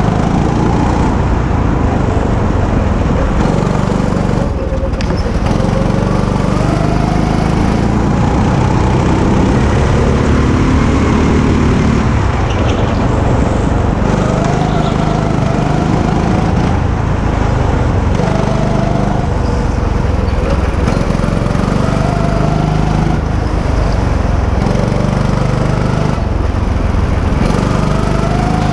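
Go-kart's small petrol engine running hard through laps, its pitch repeatedly climbing as it revs up and dropping back off when the kart slows for the bends, with heavy low rumble throughout.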